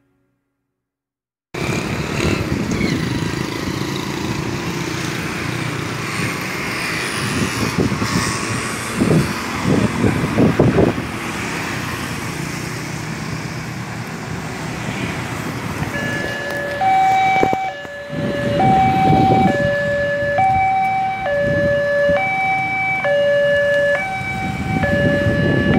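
Steady traffic noise with a few louder surges. About two-thirds of the way in, a two-tone emergency vehicle siren starts, alternating between a high and a low note about every half second.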